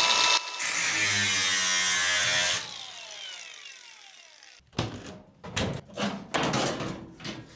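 A small electric motor whirs steadily for about two seconds, then winds down, falling in pitch and fading. About four and a half seconds in, scattered knocks and clatter follow as the sheet-metal outer cover of the microwave is handled and lifted off.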